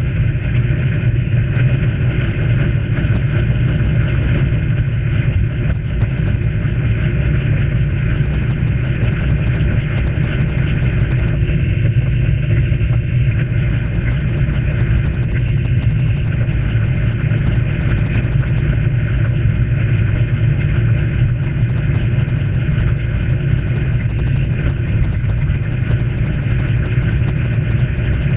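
Steady wind buffeting and road rumble on a bicycle-mounted camera riding along a paved path, a loud continuous low rumble with faint scattered ticks from the bike and mount.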